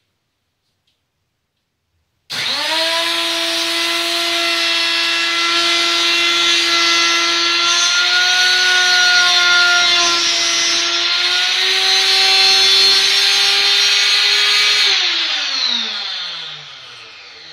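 Router switched on about two seconds in, running at a steady high whine with small pitch wobbles as it cuts a final pass in wood. Near the end it is switched off and winds down, its pitch falling.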